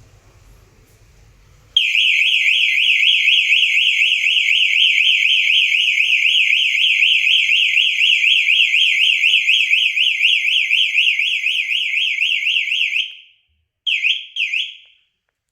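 ThinkX XGen motion-plus-fire security system siren set off by motion: a loud, rapidly warbling electronic alarm tone. It starts abruptly a couple of seconds in, sounds for about eleven seconds and cuts off, then gives two short chirps near the end.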